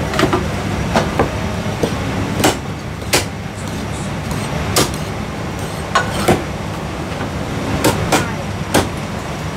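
Chinese cleaver chopping on a thick wooden chopping block, about a dozen sharp, irregular chops, some in quick pairs, over steady low background noise.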